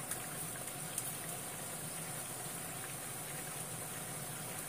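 Pork stomach and green peppers bubbling steadily in garlic olive oil in a frying pan, stirred with chopsticks, with a couple of light clicks early in the stirring.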